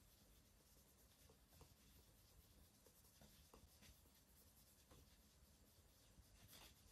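Faint rubbing of a polishing cloth on the waxed leather toe of a black dress shoe, buffing it to a mirror shine: soft scratchy strokes with a few small ticks, a slightly stronger scrape near the end.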